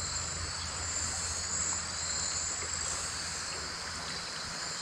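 Steady rush of a flowing creek's current, with a constant high chirring of insects over it.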